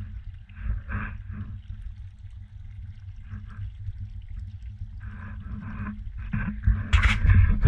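Domestic tabby cat right at the microphone, with a low continuous rumble and short scuffs as it nuzzles the camera. The scuffing grows to a loud rub against the camera near the end.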